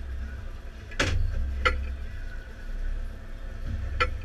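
Low rumble on a sport-fishing boat's cockpit, with three sharp knocks of gear on the deck, the loudest about a second in and another near the end.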